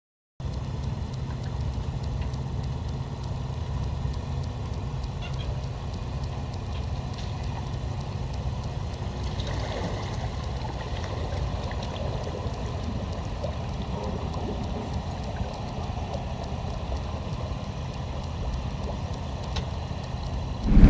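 An engine idling steadily with a low rumble.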